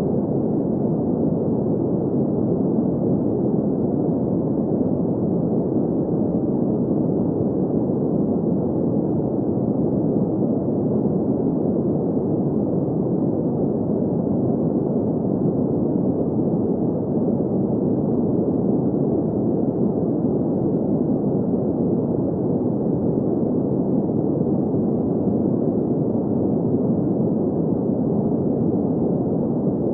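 Steady synthetic sleep noise, an even, dull hiss with no tones or changes, its energy in the low and middle range and nothing high.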